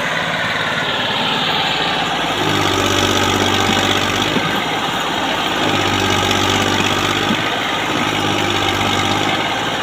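Massey Ferguson 240 tractor's three-cylinder diesel engine running hard under heavy load as it struggles to pull a loaded sugarcane trolley out of a dip. Its note swells three times, for a second or two each time.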